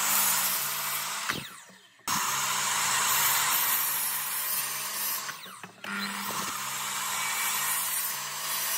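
Electric miter saw running and cutting into a wooden board. It winds down about a second and a half in and again about five seconds in, starting up again each time.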